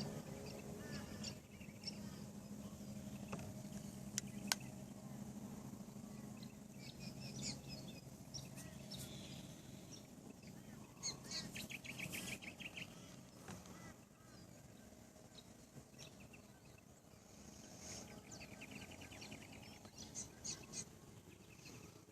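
Several wild birds calling and chirping on and off, with a couple of fast rattling trills, over a faint steady low hum that fades out about halfway through.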